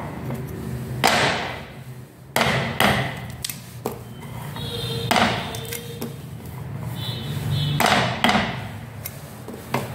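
Cleaver chopping into raw chestnuts on a wooden chopping board to score their shells: about half a dozen sharp knocks at uneven intervals.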